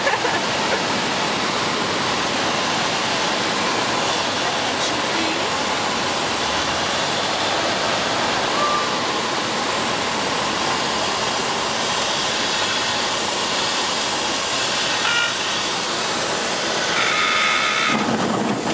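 Steady engine and airflow noise inside a Cessna 152's cabin on the landing approach. Near the end, the stall warning horn sounds a high, steady tone for a second or two as the plane flares and touches down on the grass.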